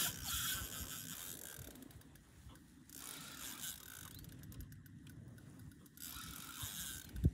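Ice-fishing reel clicking and ratcheting as it is worked while a big northern pike is fought up to the hole.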